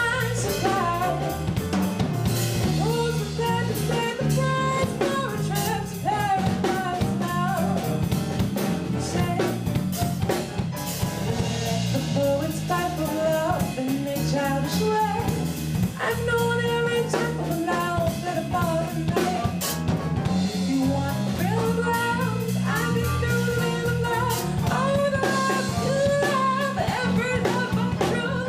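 A jazz- and blues-tinged R&B song with a singing voice over drum kit, bass and guitar, playing steadily.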